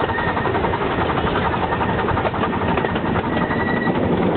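Small ridable live-steam locomotive running along the track: a fast, steady patter of exhaust chuffs and clatter from the wheels and cars on the rails. A faint high steady tone comes in briefly about three seconds in.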